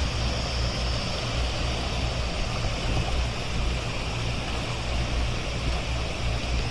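Steady rushing noise of the flooded Godavari river's fast muddy current, with a low rumble underneath.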